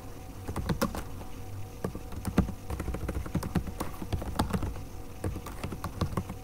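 Typing on a computer keyboard: an irregular run of key clicks starting about half a second in, over a faint steady hum.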